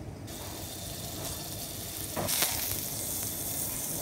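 Olive oil sizzling in a hot nonstick frying pan. About two seconds in, the sizzling turns suddenly louder as a piece of marinated wild boar tenderloin is laid into the oil with tongs.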